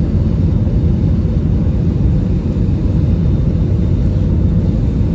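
Airliner cabin noise: the steady low rumble of the engines and rushing air, heard from inside the passenger cabin as the plane comes in to land.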